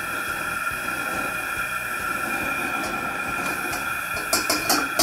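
Outdoor gas fish-fryer burner running at full blast under a carbon steel wok: a steady hiss with a steady high tone. A few sharp clicks come near the end.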